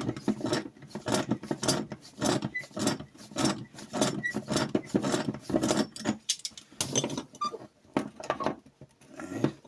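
Irregular metallic clicks and knocks from a pipe wrench being worked on a tight nut of a steel-strap tensioning tool. The clicks come thick and fast for about six seconds, then thin out.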